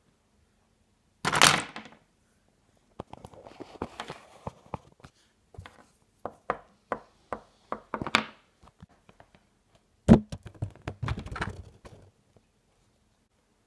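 Small plastic Littlest Pet Shop figures handled and knocked against a wooden surface: a short clattering crash about a second in, then a run of sharp taps a few times a second as a figure is moved across the table, then a loud thunk about ten seconds in followed by a cluster of knocks.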